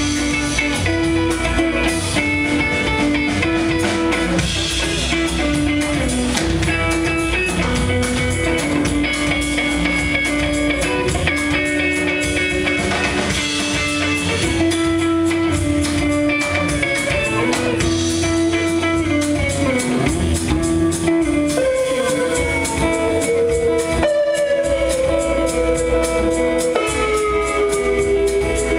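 Live band jam: electric guitar over drum kit and bass, with long held notes, several of which bend and slide in pitch in the second half.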